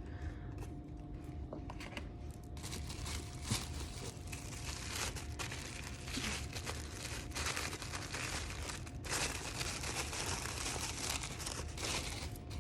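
Wrapping being crinkled and torn by hand as an item is unpacked, with a few light handling clicks at first and then about ten seconds of continuous rustling and crinkling.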